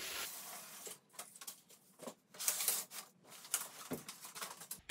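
A treadmill's side rail being pushed and slid out along its frame: a series of irregular scraping and rubbing noises, the loudest about two and a half seconds in.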